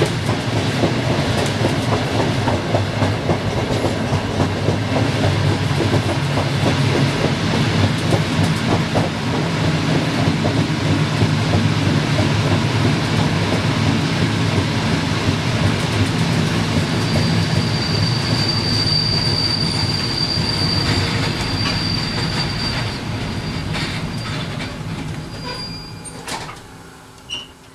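Passenger train's wheels running over the rails, heard from the rear cab, with dense rolling noise. A high steady squeal comes in about two-thirds of the way through and lasts several seconds. The noise dies down near the end as the train slows, with a single sharp knock just before the end.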